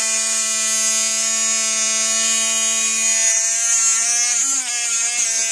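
Oral-B battery electric toothbrush running fast on a 3.7-volt 14500 lithium cell in place of its usual 1.5-volt AA: a loud, steady buzz like a Dremel tool. Its pitch wavers briefly a little past halfway.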